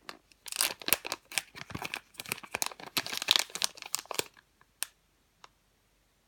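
Crinkly plastic packaging of a squishy toy being handled and pulled open, a dense run of crackling and tearing for about four seconds, then two faint clicks.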